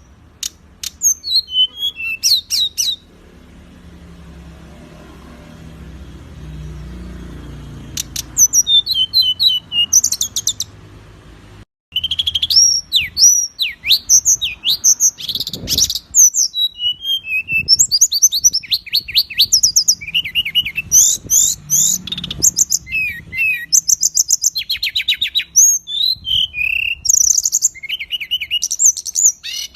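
Songbird song: fast, varied chirps, rattling trills and gliding whistles in quick short phrases. It is sparse for the first several seconds, then runs almost without pause from about twelve seconds in.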